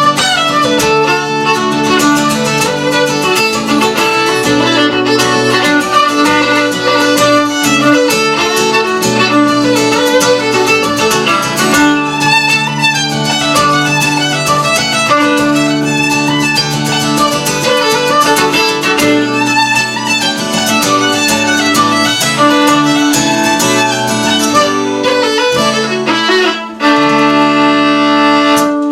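Fiddle playing a fast dance tune over strummed guitar accompaniment, closing on a long held final chord near the end.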